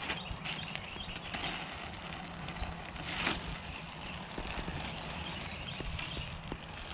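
Lead air-rifle pellets and slugs clicking and rustling inside a plastic bag as they are worked around in a silicone coating, with one louder crinkle or knock about three seconds in. A steady low hum runs underneath.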